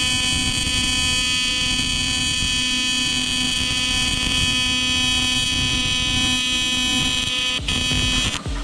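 TIG welding arc buzzing steadily, a harsh electrical tone that cuts out near the end.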